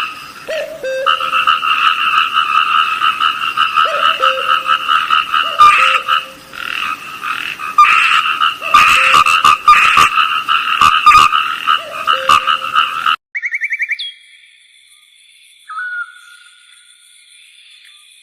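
A dense chorus of frogs trilling steadily, with a lower croak recurring every few seconds. About thirteen seconds in it cuts off abruptly, leaving faint bird whistles and chirps.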